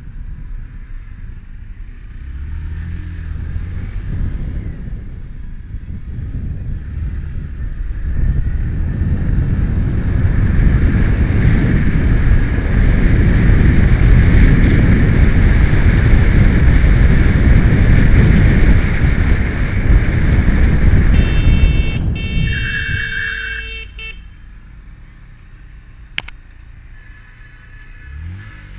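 Yamaha motorcycle riding through city traffic, picked up by the helmet camera's built-in microphone. The engine hum builds into a loud low rumble of engine and wind as it speeds up. A vehicle horn sounds for about three seconds near the end, then the engine drops back to quieter running.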